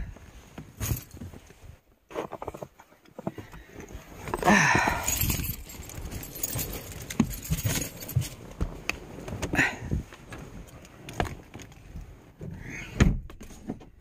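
Handling sounds of someone getting into a minivan's driver seat: a run of clicks, knocks and rustles, with keys jangling and the door and fittings being handled.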